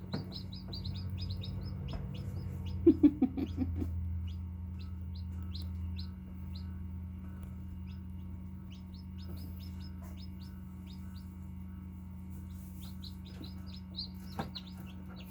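Newly hatched chicks peeping: short high peeps in quick runs, over a steady low hum. About three seconds in there is a brief, louder, lower stuttering call.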